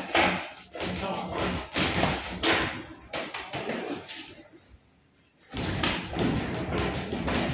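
Boxing gloves landing punches with sharp thuds, several in the first few seconds, amid footwork on the ring canvas. The sound nearly drops away for about a second past the middle, then steady gym noise returns.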